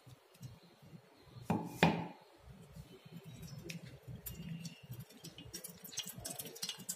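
Stainless steel strainer and bowls knocking and clinking against each other as they are handled: two sharp knocks about one and a half seconds in, then a cluster of light clinks near the end.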